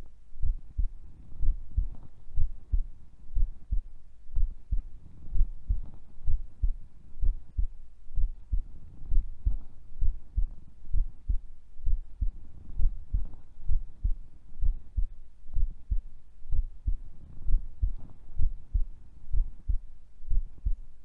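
A sleeping woman's heartbeat heard close against the body: steady low double thumps at about 75 beats a minute. Faint stomach gurgles rise and fall between the beats.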